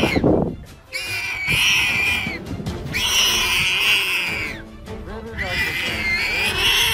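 An animal screaming: a sharp falling cry at the start, then three long, high, wavering screams of about a second and a half each.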